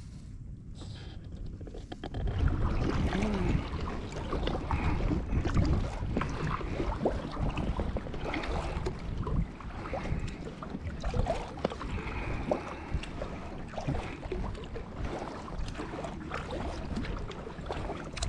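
Kayak paddling: paddle blades dipping and splashing with water trickling along the hull. The water sounds pick up about two seconds in.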